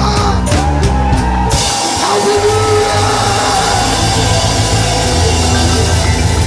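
Live band playing rock music with drums, guitar and keyboard. Short separate hits give way about a second and a half in to the full band playing on steadily.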